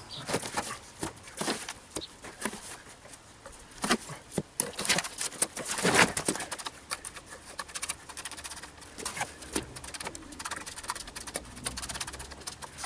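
Mason's trowel scraping and scooping mortar in a plastic mortar tub: a string of irregular scrapes and knocks, the loudest about six seconds in.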